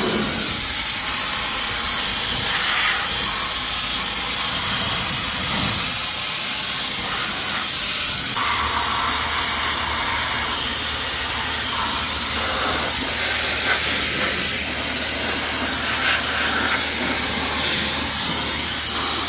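Sandblaster blasting grit against a rusty truck frame: a loud, steady hiss of compressed air and sand, knocking loose rust off down to bare metal. About eight seconds in, the sound shifts and a low steady hum joins the hiss.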